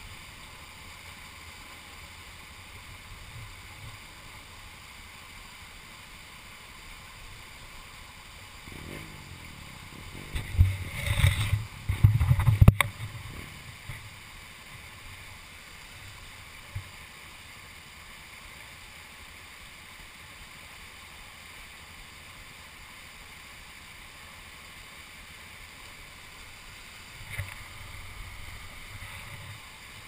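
Shallow, fast rocky river rushing steadily over stones. About ten seconds in, a few seconds of loud, low thumping and rumbling break in, ending in a sharp click, with a smaller knock near the end.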